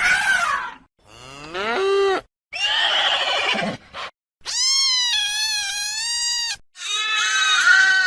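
A quick series of about five different animal calls, one after another with short silences between them; one call rises in pitch and the longest, in the middle, is held for about two seconds.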